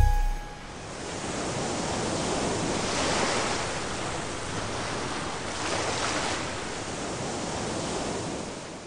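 A rushing noise like surf or wind, swelling twice and fading out near the end, just after a song's last note dies away.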